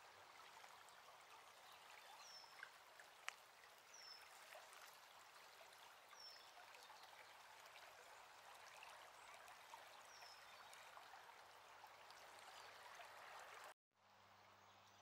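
Faint, steady rush of a muddy stream running high after flooding. A short high chirp repeats four times, about every two seconds, and the sound cuts off abruptly near the end.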